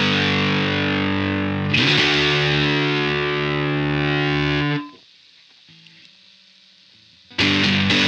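Electric guitar through the Southampton Pedals Indie Dream's fuzzy, saturated drive, with chords ringing out in long sustain. A new chord is struck about two seconds in and is cut off suddenly near five seconds. After a near-quiet gap of about two seconds, the playing comes back in loudly near the end.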